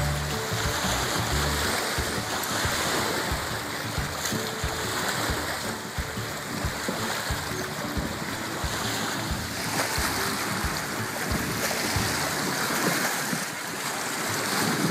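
Small waves lapping and washing onto a lake shore, with wind buffeting the microphone in irregular low thumps.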